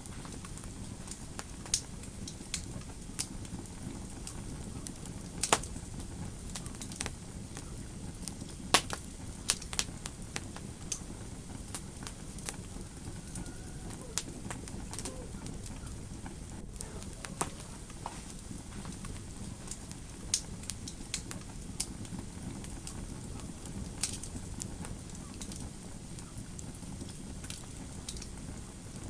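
Fire in a fireplace crackling: a steady low rush of flames with irregular sharp pops, the loudest about five and a half and nine seconds in.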